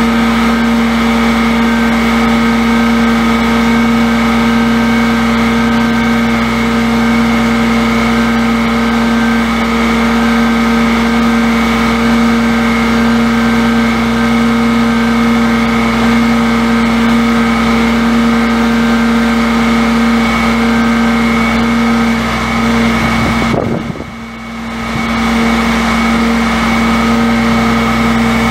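Cummins six-cylinder turbo diesel engine of a bucket truck running at a steady speed, with an even hum and whine. The sound drops away for about a second near the end, then returns unchanged.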